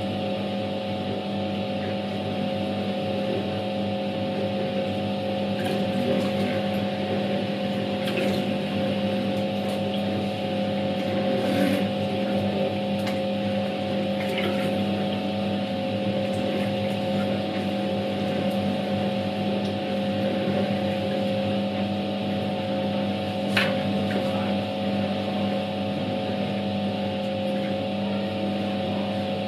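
Światowit M4 impeller washing machine running a wash: its EDA SED-110-4 capacitor-start motor hums steadily while the impeller churns water and clothes. A few brief knocks stand out, the sharpest about three-quarters of the way through.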